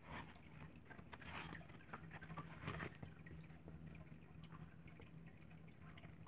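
Faint scattered rustles and light taps of a book being handled and opened, over a low steady hum.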